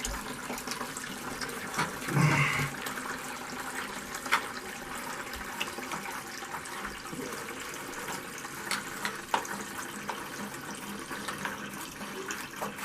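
Water draining steadily from a water heater's drain fitting and hose, with a few sharp clicks and a brief knock about two seconds in.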